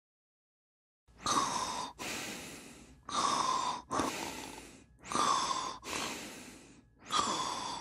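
A sleeping boy snoring through an open mouth. After about a second of silence come four slow breaths, about two seconds apart, each a louder inhale followed by a softer, fading exhale.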